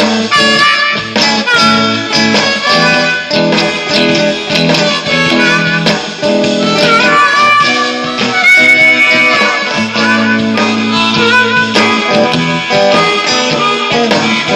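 Hohner Marine Band diatonic harmonica playing a bluesy instrumental line with bent notes over guitar accompaniment.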